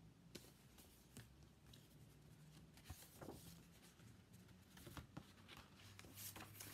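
Near silence with faint rustles and a few soft clicks from a paperback picture book being handled and its pages turned, over a faint low hum.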